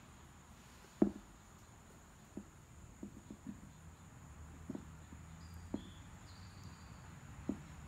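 Light plastic clicks and knocks from a dash speaker and its wiring connector being handled and reconnected. The loudest click comes about a second in, followed by a scattering of softer ones roughly once a second.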